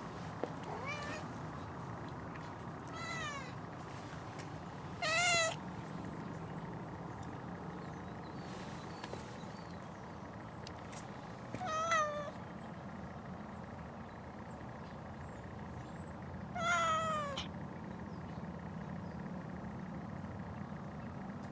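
Domestic cat meowing close up: four short meows spaced several seconds apart, the first faint and the others louder.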